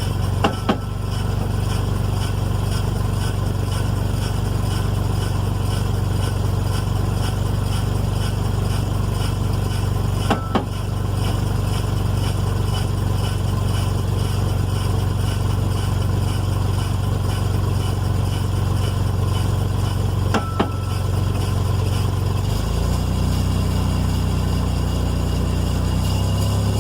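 Engine of a 2002 first-generation Toyota Tacoma running steadily in first gear, rear wheels turning with the truck on jack stands. A sharp clunk from the rear driveline comes three times, about ten seconds apart. This regular clunk appears only when the brake pedal is pressed, and its cause is unknown to the owner. Near the end, the engine note changes and deepens.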